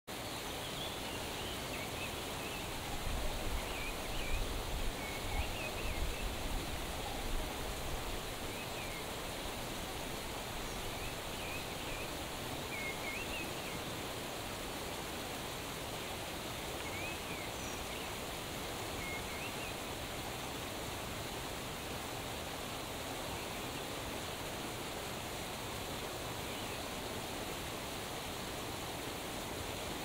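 Steady rushing of a waterfall, with short high chirps now and then. A deeper rumble swells in the water noise between about three and eight seconds in.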